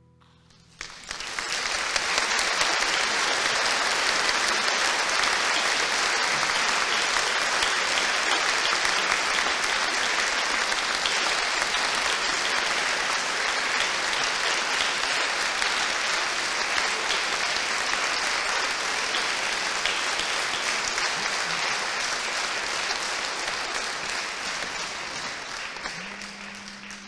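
Audience applauding, starting abruptly about a second in as the song ends, holding steady and fading away near the end.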